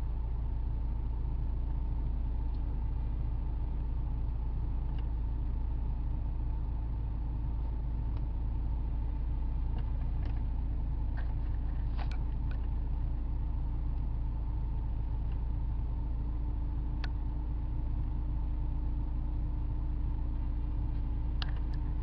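2008 VW Passat 2.0T's turbocharged four-cylinder engine idling steadily, with a few light clicks.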